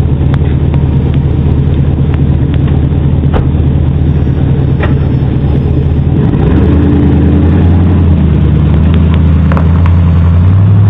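Truck engine running close to a doorbell camera's microphone. About six seconds in, the engine note rises and gets louder, and it rises again near the end.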